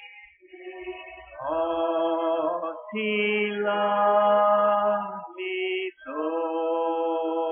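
Congregation singing a hymn a cappella, without instruments. The voices hold long drawn-out notes, a few phrases with short breaks between them.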